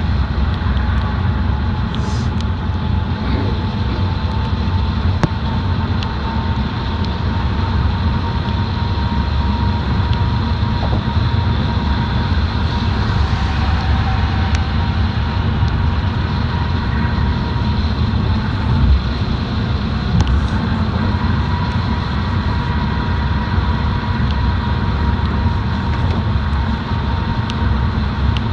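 Moving car: a steady low rumble of engine and road noise, with a faint steady whine above it.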